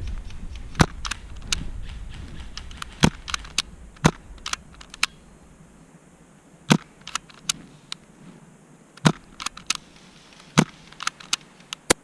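Scattered sharp clicks and pops at irregular intervals, the loudest coming every one to two and a half seconds with smaller ones between, over a low rumble that dies away after the first few seconds.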